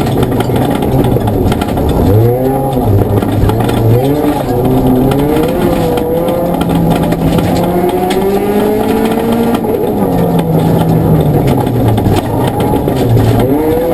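Ford Fiesta ST rally car's engine heard from inside the cabin at full effort, revs repeatedly rising and dropping with gear changes and lifts. Steady loud tyre and gravel noise runs underneath.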